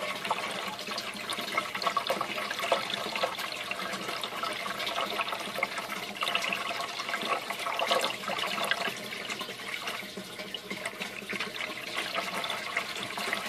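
Bell siphon in a PVC standpipe draining an aquaponics grow bed: a steady rush of water with irregular small gurgles as the siphon pulls the bed down toward the slits in the bell that will let air in and break it.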